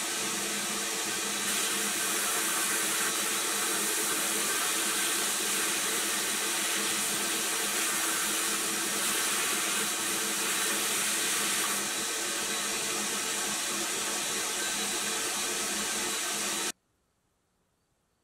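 Abrasive media blaster in a blast cabinet hissing steadily as it strips a metal toy car body, with a steady hum underneath. The hiss stops abruptly near the end.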